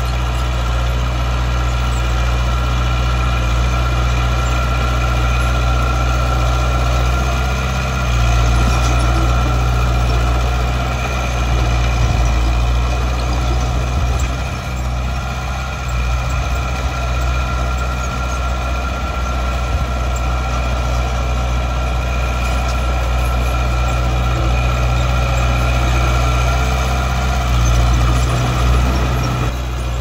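Heavy diesel engine of earthmoving machinery running steadily, with a slight dip in loudness about halfway through.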